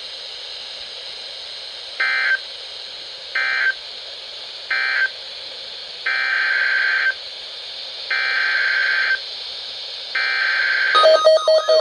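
NOAA Weather Radio SAME digital data bursts: three short buzzy end-of-message bursts, then three longer, roughly one-second header bursts that announce the next alert. A steady alert tone starts near the end.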